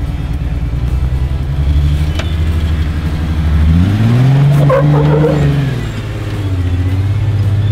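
Off-road Jeep engine running, revving up about four seconds in, holding high for a couple of seconds, then dropping back.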